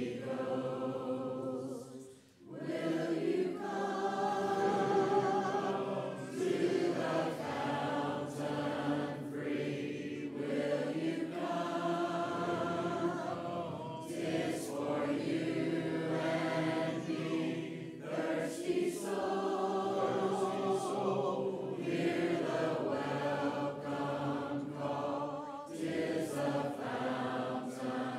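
Congregation singing a hymn a cappella, many voices together in sung lines with short breaks between phrases, the longest pause about two seconds in.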